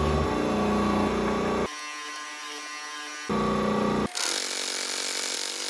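Mechanical power hammer running and pounding hot steel in rapid blows. The sound changes abruptly a few times, in places thinner and quieter.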